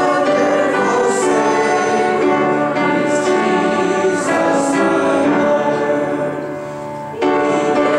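A church congregation singing a hymn together, many voices at once. The singing eases off briefly, then a new phrase comes in strongly near the end.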